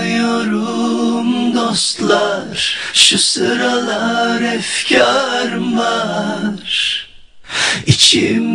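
A man singing a Turkish pop song, the voice carrying with almost no backing, with a short break about seven seconds in before the singing resumes.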